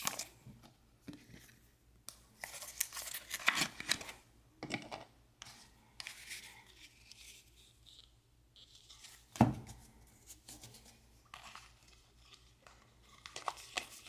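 Trading-card pack wrappers being torn open and crinkled, with cards rustling as they are handled, in short bursts. About nine and a half seconds in, a single sharp knock, the loudest sound, as something is set down on the table.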